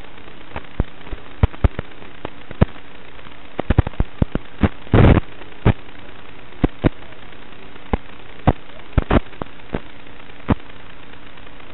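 Static from an analog FPV video receiver's audio channel: a steady hiss with a faint hum, broken by irregular sharp clicks and pops, with a dense burst of crackle about five seconds in.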